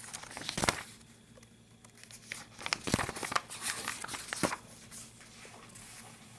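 Paper pages of a workbook being handled and turned, crinkling and rustling in two bursts: a short one about half a second in and a longer one from about two and a half to four and a half seconds in.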